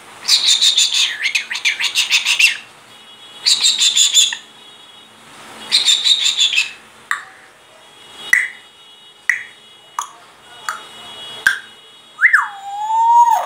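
Grey parrot calling: three harsh, raspy screeches, then a run of short whistled chirps about a second apart. Near the end comes one longer whistle that drops in pitch and holds low for about a second.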